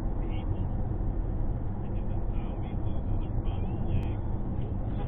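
Steady road and engine noise of a car driving on a highway, heard inside the cabin through the dashcam, with a few brief faint high-pitched chirps over it.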